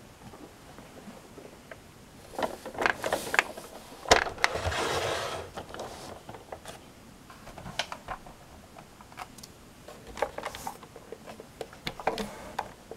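Plastic toy tanks being handled and moved on a tabletop: scattered clicks and knocks, a sharp knock about four seconds in followed by a scrape of a second or so as a tank is slid along, and more light clicks near the end.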